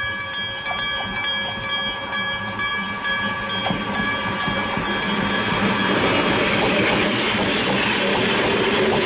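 Iron gong-type electric level-crossing warning bell striking in a steady rhythm, about two to three strokes a second, its ringing tones sounding on between strokes. From about six seconds in, the loud rumble and wheel noise of a passing train rises and drowns out the strokes.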